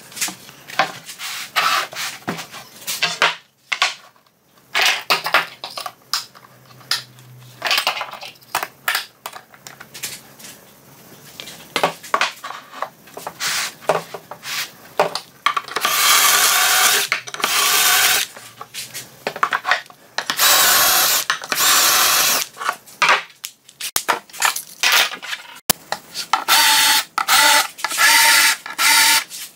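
A melamine chipboard panel is handled and a metal drilling jig is clamped onto it, with scattered clacks and knocks. Then a cordless drill bores holes through the jig into the chipboard in three bursts of about two seconds each, drilling the holes for confirmat screws. The last burst carries a steady motor whine.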